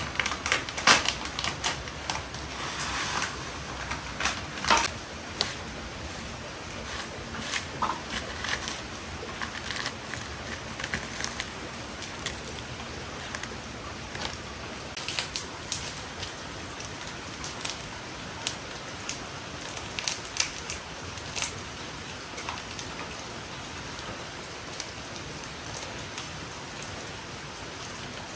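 Plastic food packets crinkling and small seasoning sachets being torn open and squeezed out, heard as irregular sharp crackles over a steady background hiss.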